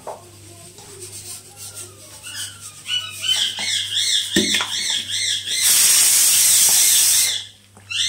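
A high, warbling whistle, pulsing about four times a second, builds from about three seconds in, with a single knock partway through. It then gives way to a loud hiss lasting about a second and a half before the warbling returns.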